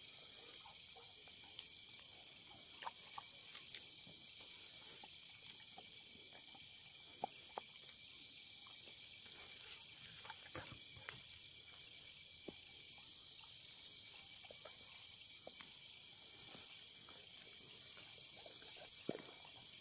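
Night insect chorus: a steady high trill that swells and fades a little more than once a second, over fainter steady insect tones. Faint scattered ticks and rustles of dogs chewing and pulling at grass come through beneath it.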